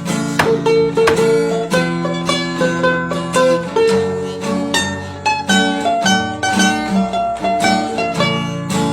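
Background music: a fast, busy instrumental tune on plucked strings.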